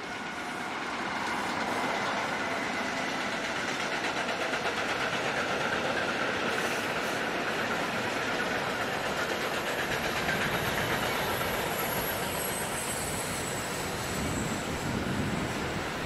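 A train passing on the line, its wheels on the rails making a steady running noise that builds over the first two seconds and then holds, with thin high squeals coming in near the end.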